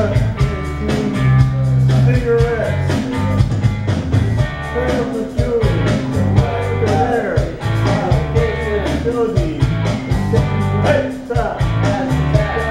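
A man singing into a handheld microphone over a rock-and-roll backing track with guitar and bass.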